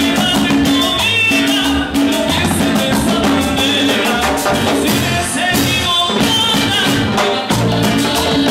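A live Latin dance band playing a steady beat, with keyboard, electric upright bass and percussion struck with sticks.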